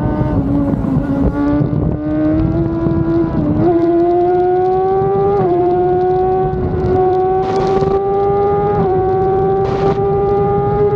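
Stohr WF1 race car's BMW motorcycle engine at full throttle, heard onboard. The engine note climbs steadily with revs and road speed, with a few small steps along the way. Heavy wind rush on the microphone runs under it, with two short hissing gusts near the end.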